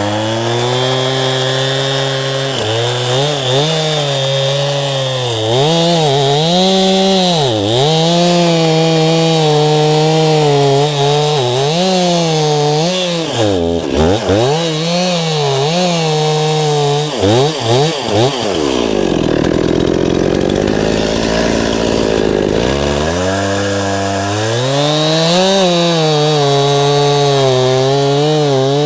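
Two-stroke chainsaw running while cutting pine, its engine pitch rising and sagging repeatedly under load. About two-thirds of the way through it drops back to idle, then revs up again near the end.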